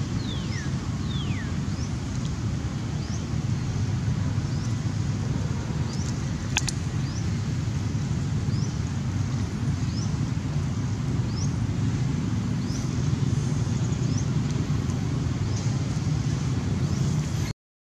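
A steady low outdoor rumble, with a bird's short rising chirps repeating about once a second over it. There is a single sharp click a little past six seconds in, and the sound drops out briefly near the end.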